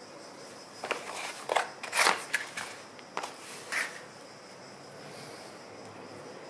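Rustling and crackling handling noise as a black USB charging cable is lifted out of its cardboard box. It comes as a cluster of short rustles and clicks between about one and four seconds in.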